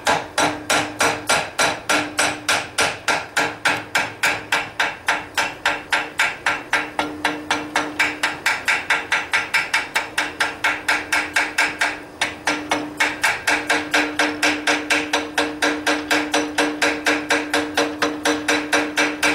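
Quick, steady hand-hammer blows on a hot railroad spike over an anvil, about four or five a second, with the anvil ringing under them. The blows stop briefly about twelve seconds in.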